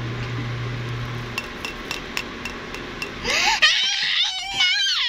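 A few light clinks of an egg tapped against the rim of a ceramic bowl, then a child's loud squealing laughter from about three seconds in.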